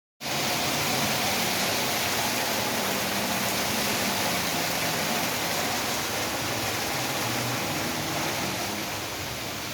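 Rain pouring down steadily, a dense even hiss, easing a little near the end.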